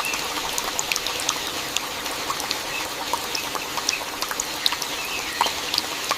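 Steady rain falling, with many sharp, irregular drop ticks over a constant hiss.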